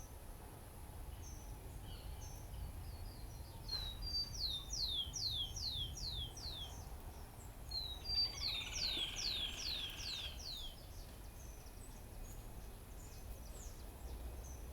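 A small songbird sings two phrases, about four and eight seconds in. Each phrase is a quick series of high, downward-slurred whistled notes. Faint chirps from other birds and a steady low outdoor rumble sound throughout.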